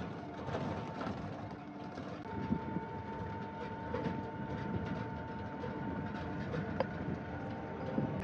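A vehicle driving along a road: steady running noise with irregular small knocks and clatter.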